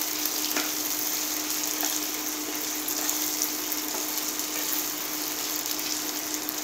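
Chopped onion and tomato frying in oil in a non-stick kadai, a steady sizzle, with a metal spatula scraping and tapping the pan as it is stirred; the tomatoes are being fried until soft. A steady low hum runs underneath.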